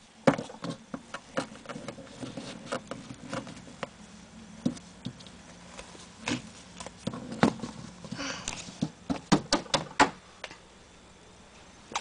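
Irregular light clicks and taps of small plastic pet toys being handled by hand, with a brief rustle about eight seconds in. The tapping stops for the last two seconds.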